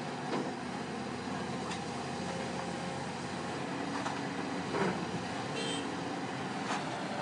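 Caterpillar hydraulic excavator's diesel engine running steadily under load as the machine swings and dumps a bucket of soil into a dump truck, with a few sharp knocks.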